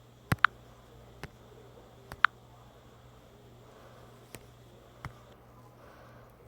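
Kangaroo clucking: a few sharp clicks, two of them about two seconds apart followed at once by a brief high chirp, with fainter single clicks in between.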